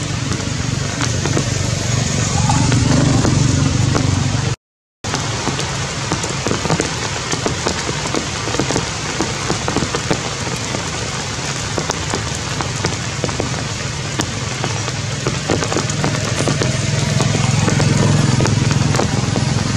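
Heavy rain falling, a steady hiss full of many small drop hits, with a low rumble underneath. The sound cuts out for about half a second some four and a half seconds in.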